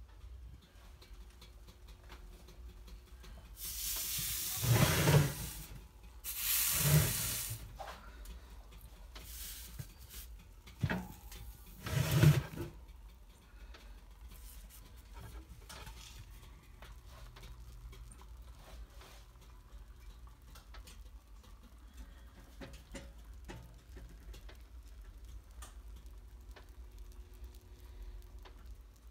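An oven opened and the lid of a terracotta clay roasting pot handled on the metal rack: a few loud clunks and rattling scrapes in the first half. After that comes faint sizzling from the roast cooking in the hot oven.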